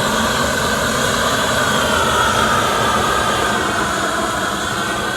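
Steady rushing roar of a roofing heat tool heat welding the seams of torch-down modified-bitumen membrane.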